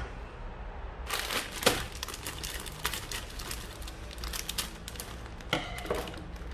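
Rapid, irregular crinkling and crackling, as of plastic packaging being handled, with scattered light clicks and a couple of louder knocks.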